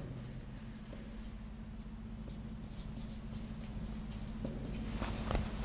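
Marker pen writing on a whiteboard: a run of short, light scratching strokes as a word is written, a little busier near the end.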